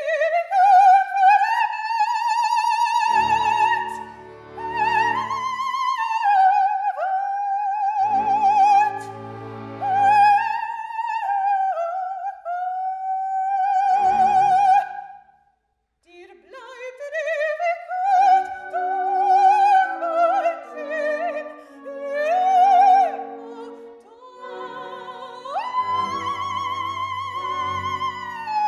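Solo soprano singing an operatic aria with strong vibrato and long held high notes, over sparse sustained accompanying chords. The music breaks off briefly about halfway through.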